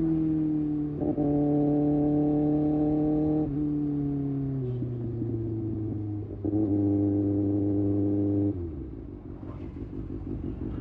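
Kawasaki Ninja ZX-6R inline-four engine under riding: throttle opened twice about a second and six seconds in, each time held at steady revs for about two seconds, with the revs falling away between and a drop to low revs near the end.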